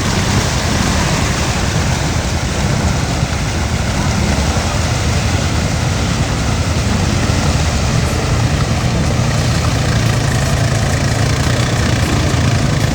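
Honda Foreman 500 ATV engine running steadily.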